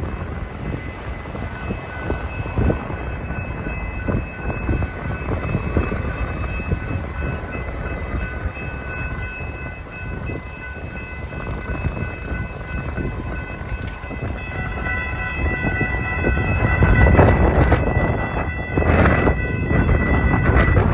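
Railroad grade-crossing warning bells ringing steadily over a low rumble that builds toward the end, as the crossing signals warn of an approaching train.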